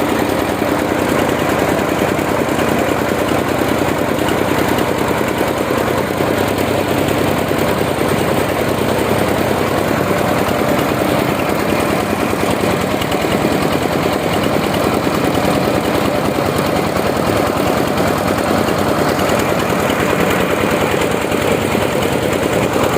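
Diesel engine of a mobile rice mill running steadily, with a rapid, even firing pulse.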